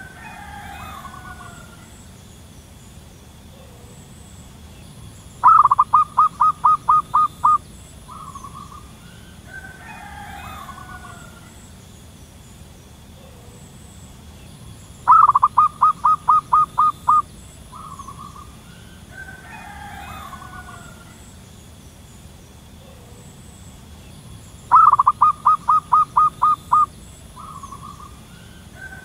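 Zebra dove giving its staccato cooing song: a rapid run of about ten short coos lasting some two seconds, repeated three times about every ten seconds, with softer bird calls in between.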